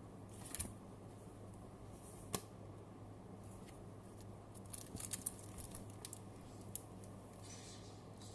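Match Attax trading cards being handled: scattered light clicks and soft rustles, one sharper click a couple of seconds in and a cluster about halfway, over a steady low hum.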